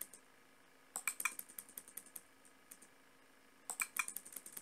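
Computer keyboard typing: two short runs of keystrokes, one about a second in and one near the end, as spaces, asterisks and line breaks are typed into a text editor.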